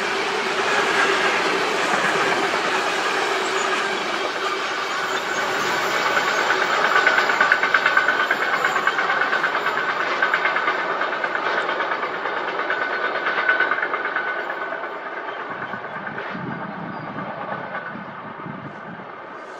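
A train passing close by at speed, its wheels clattering rhythmically over the rails. The sound fades as the train moves away near the end.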